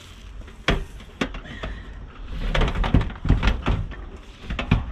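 Knocks and thuds as a Midea window air-conditioner unit is shoved through a motorhome's window frame and onto its metal support bracket. There is a sharp knock about a second in, a quick run of bumps around the middle, and more knocks near the end.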